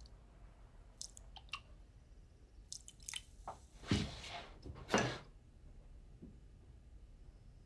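Cola poured from an aluminium can into a ceramic mug, then a couple of knocks on the table and crunchy rustling as something dry is crumbled into the mug.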